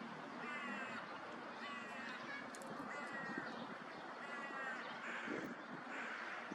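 A bird giving a series of short, harsh calls, about four in a row spaced a little over a second apart, then fainter ones near the end, over steady outdoor background noise.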